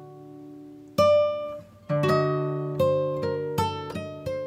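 Background music on acoustic guitar: a chord fading, then a fresh plucked chord about a second in, followed by a run of quicker single plucked notes.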